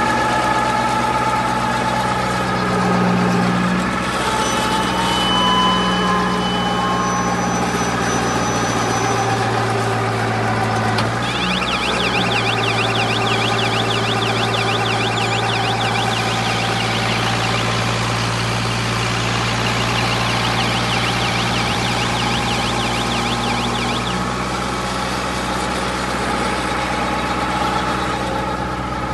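Wheat-straw husk baling machine running with a steady mechanical drone. About eleven seconds in the drone shifts and a high, fast-warbling whine joins it; the whine stops a couple of seconds before the end.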